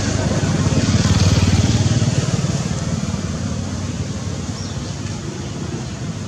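A motor vehicle engine running close by, loudest a second or two in and then slowly fading as it passes.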